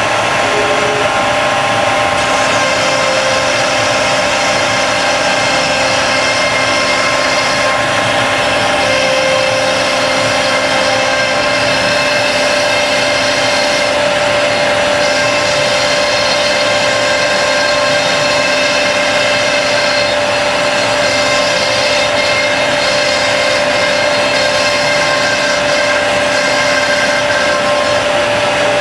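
CNC router's VFD-driven spindle running and cutting slots through melamine-faced particleboard, a steady whine with several tones over a rushing noise, with the dust extractors running.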